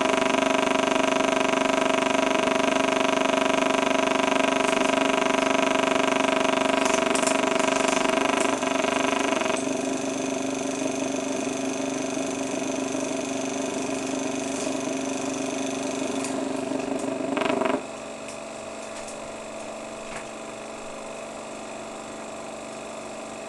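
Steady mechanical motor hum with several steady tones, like an 8mm film projector running. The tone shifts about ten seconds in, and the sound drops sharply in loudness near the end as the film runs out to blank leader.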